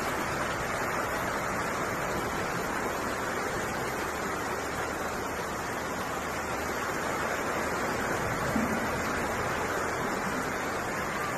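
Floodwater rushing fast along a street, making a steady, unbroken rushing noise.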